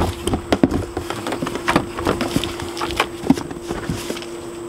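Cardboard box being handled and slid up off a plastic pool filter pump: scattered knocks, scrapes and rustles of cardboard. A steady hum runs underneath.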